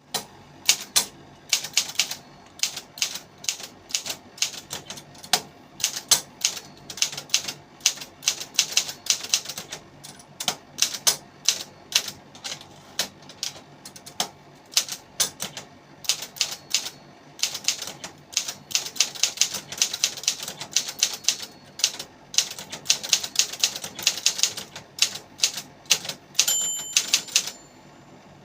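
Brother 562TR typewriter being typed on: irregular runs of sharp key strikes, several a second, with brief pauses. A short ringing tone sounds near the end.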